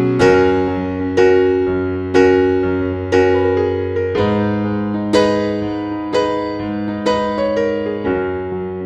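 Background music: a soft electric piano playing a slow melody, a note or chord struck about once a second over held bass notes.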